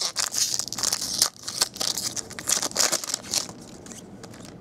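Foil trading-card pack wrapper crinkling and crackling as it is handled, dying down about three and a half seconds in.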